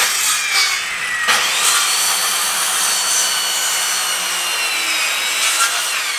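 Corded circular saw with a freshly changed blade running and cutting through a wooden board, its high motor whine sagging slowly in pitch under the load of the cut. It stops abruptly at the end.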